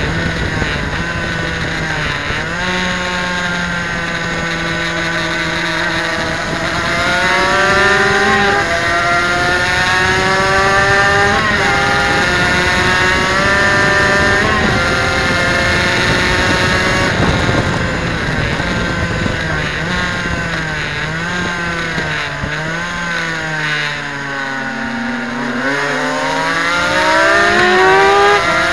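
Suzuki RGV250's two-stroke V-twin engine at racing revs, heard from onboard over wind rush: the pitch climbs and drops back at each upshift through several gears, then falls and wavers as the bike slows about two-thirds of the way in, and climbs again near the end.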